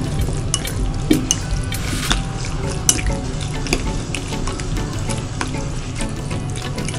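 Metal spoon stirring raw prawns through a wet spice marinade in a glass bowl: a soft squelching with irregular clinks and scrapes of the spoon against the glass.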